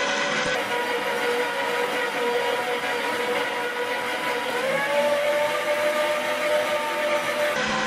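Electric meat grinder's motor running with a steady whine while soft yellow material is forced through the auger and perforated grinding plate. The whine's pitch rises slightly about halfway through.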